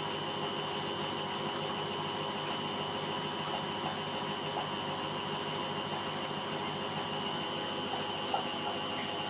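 Candy GODF800 washing machine in its first low-speed spin: the drum turning steadily with an even motor whine.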